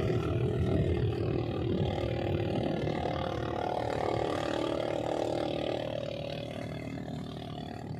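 Engine of a small racing motorboat at speed, a steady drone that rises slightly in pitch, then slides lower and fades as the boat pulls away.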